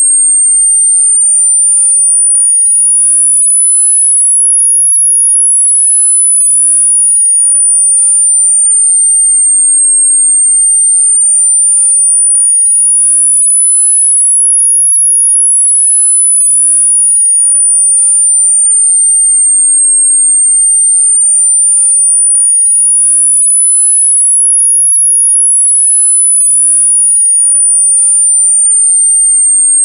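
Synthetic pure sine tone, very high-pitched, gliding smoothly up and down in a slow, steady sweep that rises and falls about once every ten seconds: a variable-sweep tinnitus masking sound.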